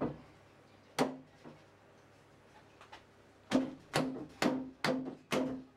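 Hand striking the top rail of a wooden cabinet frame, giving hollow wooden knocks with a short ring: one at the start, one about a second in, then a run of five about half a second apart.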